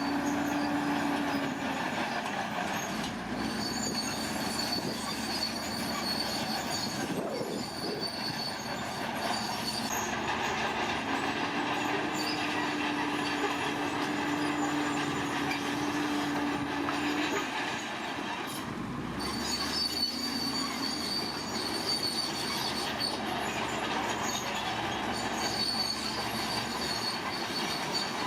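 Heavy earthmoving machinery working: a diesel engine runs steadily, with a thin high metallic squeal that comes and goes.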